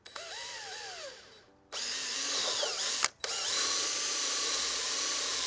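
Cordless drill with a step bit boring a 5/8-inch hole through a plastic airbox. It runs in three bursts: a short one whose pitch dips and recovers as the bit bites, then two longer steady runs separated by a brief break.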